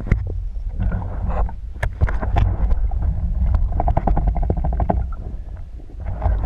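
Muffled low rumble with scattered clicks and knocks, as heard through a GoPro's waterproof housing in the water, with a quick run of bubbling pulses about four seconds in.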